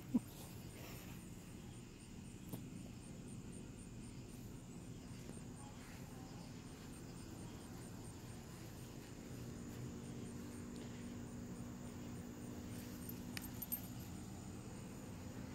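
Faint night-time outdoor ambience: a steady low hum under a faint, evenly repeating high chirping of insects, with a couple of soft clicks near the end.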